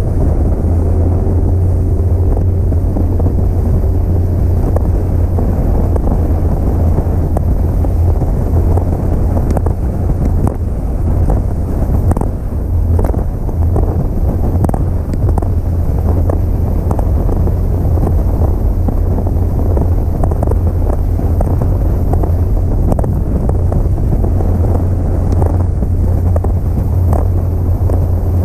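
Wind buffeting the microphone of a bass boat running at speed over rough, choppy water, over the steady low drone of its outboard motor, with frequent knocks of the hull on the chop.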